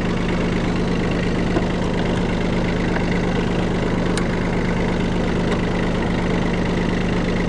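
Kubota tractor's diesel engine idling steadily, with a couple of faint light clicks in the middle.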